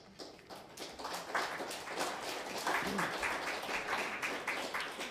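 Audience applauding, the clapping filling in about a second in and thinning out near the end.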